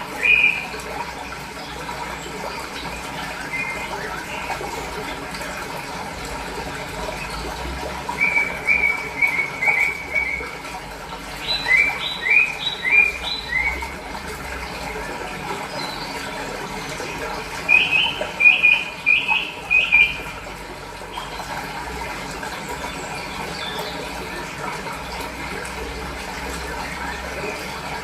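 Steady flowing water with a small bird singing over it: three phrases of four or five quick, high chirps, spaced several seconds apart.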